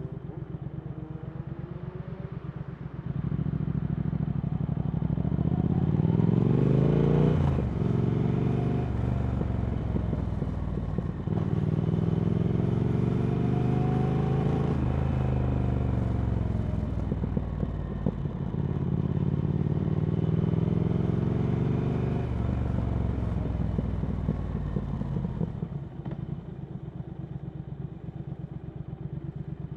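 Triumph Speed Twin 1200's parallel-twin engine through a Vance & Hines slip-on exhaust, pulling away from idle and revving up through the gears. The pitch climbs and drops back at each shift, then the engine rolls off and settles back to a steady idle near the end.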